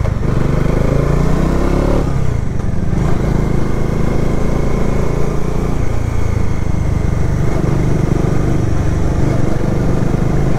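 Bajaj Dominar 400 single-cylinder engine running under way. Its pitch rises over the first two seconds as it accelerates, then it holds a steady pull, with wind noise over it.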